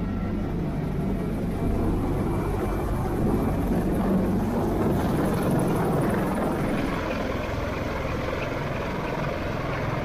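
Military rotorcraft running at high power: a loud, steady rotor and turbine-engine roar with no break, growing a little louder about a second and a half in.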